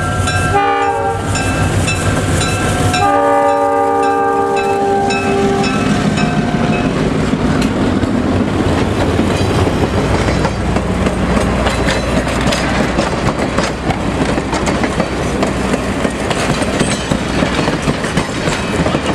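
EMD E8 diesel passenger locomotive sounds its multi-note air horn in a short blast about a second in, then a long blast from about three seconds, as it passes with its engine rumbling. After that, a string of passenger coaches rolls by with wheels clattering over the rail joints.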